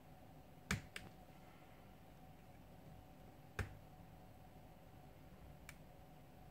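A few sharp little clicks of plastic and metal as a partly disassembled smartphone is handled and pried at to free its motherboard: two close together about a second in, another midway and a faint one near the end, over a faint steady hum.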